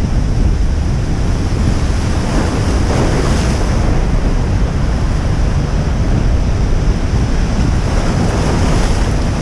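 Heavy surf breaking on a rocky shore, with strong wind buffeting the microphone. The waves swell louder briefly about three seconds in.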